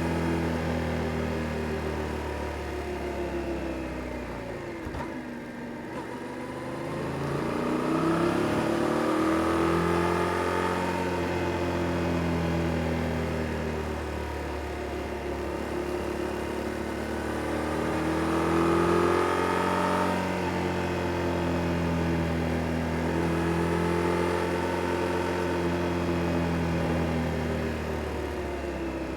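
Yamaha Tracer 7 GT's 689 cc parallel-twin engine on its stock exhaust, ridden hard along winding roads. The revs fall off to a low about five seconds in, climb and hold, and then rise again a little before the twenty-second mark.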